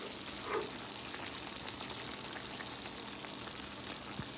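Pot of chicken pulao simmering on the stove: a steady sizzling hiss with small crackles as the last of the water cooks off around the rice.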